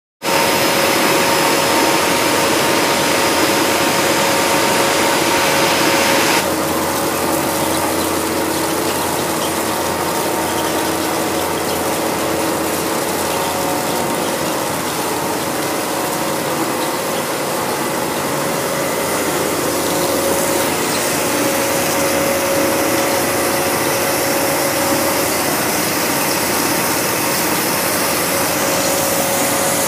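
Plastic film processing machinery running steadily: rollers and gears rattling over a continuous hum with several steady tones. The sound changes abruptly about six seconds in, getting a little quieter and duller.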